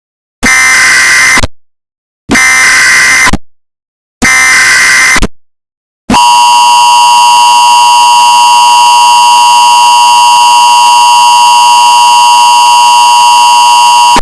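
Emergency Alert System tones, very loud: three short screechy bursts of digital SAME header data, each about a second long. About six seconds in, the steady two-tone EAS attention signal starts and holds to the end.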